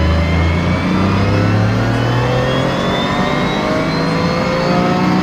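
Toyota GR Yaris's turbocharged 1.6-litre three-cylinder engine pulling hard under full throttle from low revs, its pitch rising steadily, heard from inside the cabin. Higher whines from the big turbo and the gearbox rise along with it.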